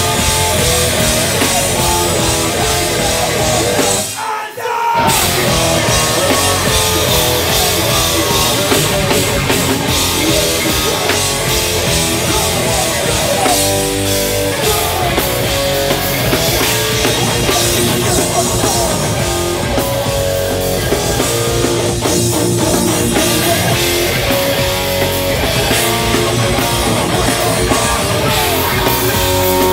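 Hardcore band playing live: distorted guitars, bass and pounding drums at full volume, with a brief stop about four seconds in before the band crashes back in.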